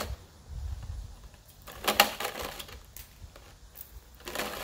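Trimmer line being pulled off its coil and gathered by hand: soft rustles and clicks, with one sharp click about two seconds in.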